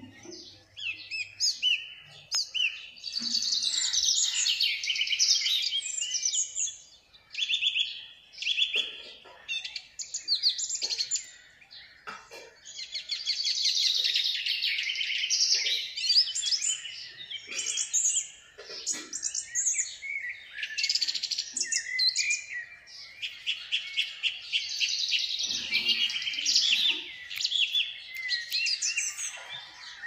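Alexandrine parakeet chattering and chirping close by: rapid, high-pitched strings of notes in long bouts with short pauses between them.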